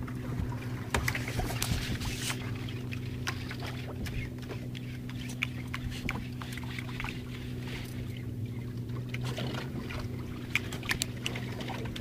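Boat engine idling with a steady low hum, with irregular light clicks and taps over it from the rod and spinning reel being worked while jigging.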